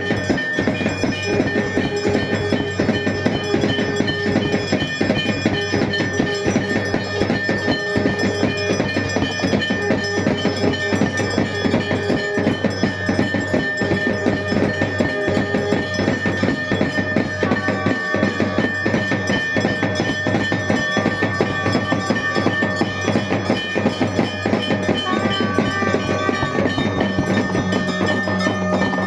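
Temple bells and drums playing together in a fast, steady beat, with held ringing tones over the strokes.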